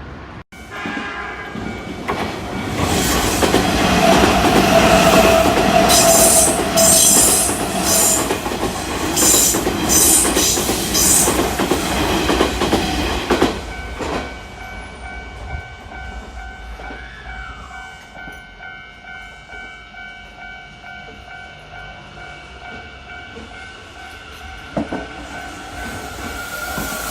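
Kintetsu electric train passing close by, building to its loudest with a run of rhythmic wheel clatter over the rail joints, then falling away. About halfway through, steady tones take over for the rest.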